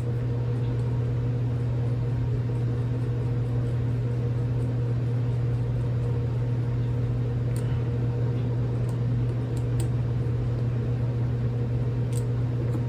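Steady mechanical hum of a running fan-like machine, with a few faint light clicks as small grip screws are worked with a screwdriver.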